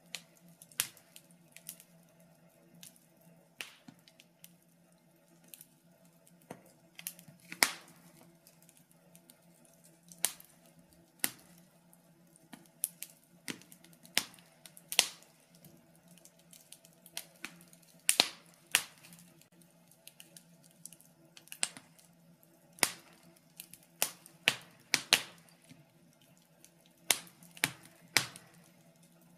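Wood fire burning in a fireplace, crackling with irregular sharp pops and snaps of varying loudness over a faint steady low hum.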